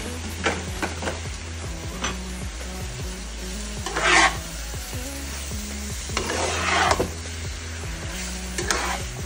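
Spatula stirring and scraping diced sausage, onion and shrimp in a frying pan, a handful of scraping strokes, the loudest about four and seven seconds in. A gentle sizzle runs under it over low heat, with a steady low hum.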